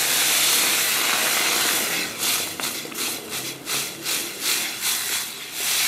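Blended chickpea puree poured into a hot pot of frying onion and garlic: a steady sizzling hiss for about two seconds, then a run of uneven stirring strokes from a spatula in the pot, two to three a second, as the sizzle dies down.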